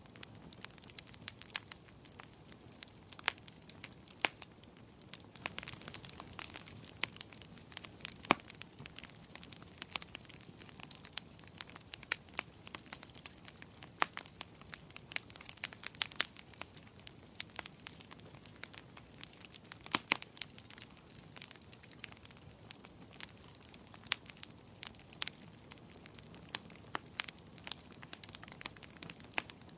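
Fire in a fireplace crackling: irregular sharp pops and snaps, a few louder than the rest, over a soft steady hiss.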